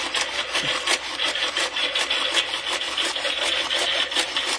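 Animated Halloween typewriter prop clattering out a rapid typing sound, about six keystroke clicks a second over a steady rattle, as it sets off its typing routine.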